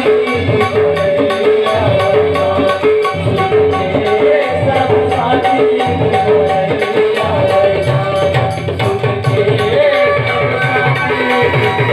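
Indian devotional music: a dholak hand drum keeps a steady rhythm under a held melody line.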